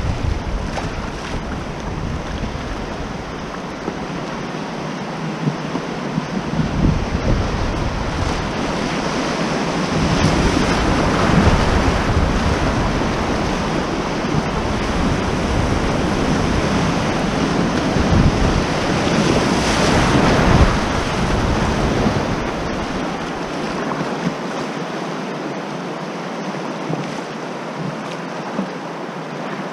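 River rapids rushing around a kayak running through choppy whitewater, with gusts of wind buffeting the microphone. The water grows louder about ten seconds in and eases off after about twenty seconds.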